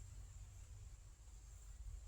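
Near silence: a faint steady low rumble with a thin high-pitched tone held steady above it.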